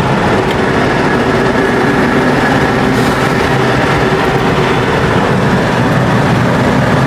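Turbocharged Jeep Wrangler TJ 4.0 inline-six pulling at steady throttle in third gear, a steady engine drone over road noise. The engine is running rough with a misfire, which the driver likens to a burnt valve.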